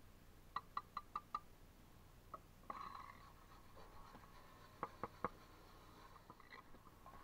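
Light bricklaying work: a quick run of about five ringing taps of a steel trowel on brick, a brief scrape of the trowel through mortar in a bucket, then three sharp taps.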